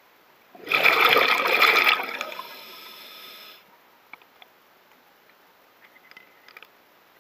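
Scuba regulator exhaust heard underwater: a diver's exhaled breath bursting out as bubbles for about a second and a half, then trailing off in a softer bubbling for another second and a half. A few faint clicks follow.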